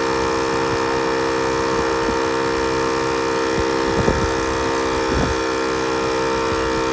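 Air compressor or portable tire inflator running with a steady buzzing drone while inflating a tire.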